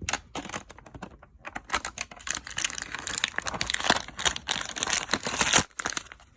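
Plastic toy packaging being handled: a run of small clicks and taps, then dense crinkling and crackling of plastic from about two seconds in, which stops shortly before the end.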